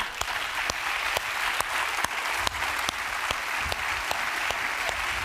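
Studio audience applauding, with sharp single claps about twice a second standing out from the dense clapping.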